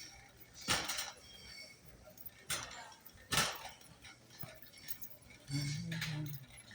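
A few separate sharp knocks or clinks, and a short low hum, like a voice, about five and a half seconds in.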